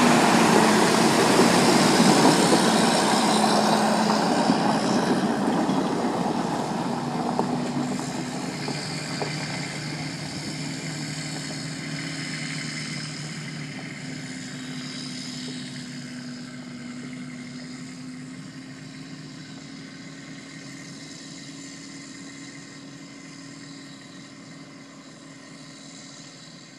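Loaded Kenworth log truck's diesel engine pulling away, its steady engine note fading slowly as the truck drives off into the distance.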